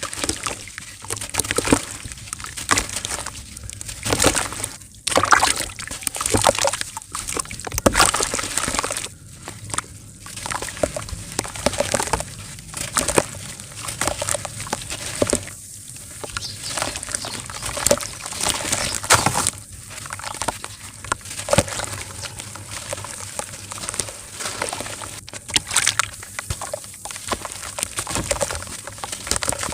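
Clumps of dirt being crumbled, crunching and crackling in irregular bursts of many short crackles every second or two.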